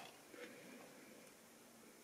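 Near silence: faint room tone with one soft clack about half a second in, from model railway rolling stock on the track.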